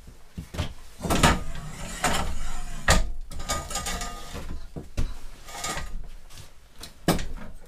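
Metal clunks, knocks and scraping as a CO2 gas bottle is laid on and shifted about on a steel welding cart. Sharp knocks come about a second in, around three seconds and near the end.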